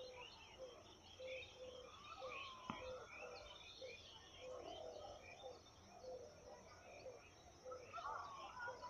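Faint birdsong: several small birds chirping and whistling, while one short low note repeats steadily, roughly one every three-quarters of a second. A single faint click comes a little under three seconds in.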